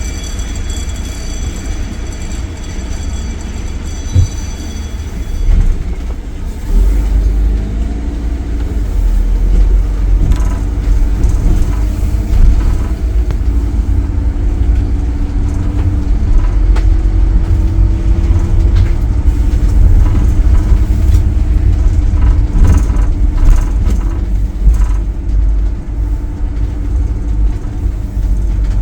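A vehicle running with a deep, steady rumble and a droning engine note. The rumble gets louder about seven seconds in.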